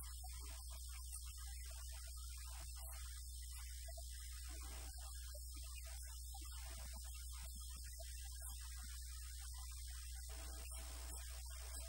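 Steady low electrical mains hum, with no speech heard.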